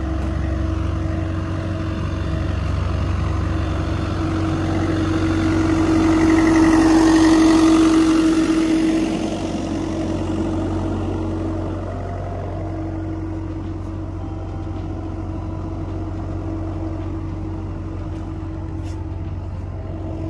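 Diesel engine of a Bobcat 337 mini excavator running steadily with a constant hum. It grows louder for a few seconds near the middle, then drops back to a lower, even level.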